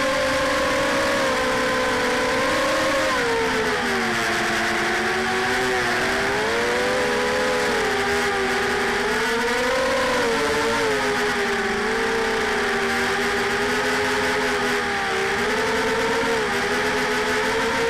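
A Lumenier QAV250 racing quadcopter in flight, its four 2300 kV brushless motors and 5-inch props buzzing. The pitch slides up and down with the throttle, dipping lower a few seconds in and rising again.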